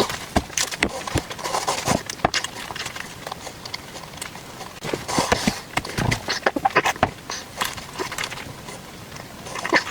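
Close-up eating sounds: irregular sharp clicks and smacks of chewing and utensils, with short noisy rushes in between.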